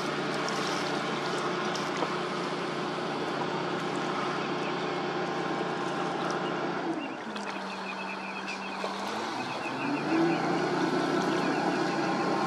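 Small tugboat's diesel engine running steadily on the tow. Its pitch drops about seven seconds in and climbs again a couple of seconds later.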